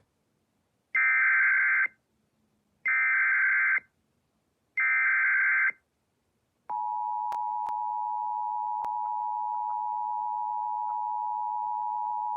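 Emergency Alert System tones: three one-second bursts of the SAME header data, a screeching digital chirp, then about a second later the steady two-tone attention signal begins and holds.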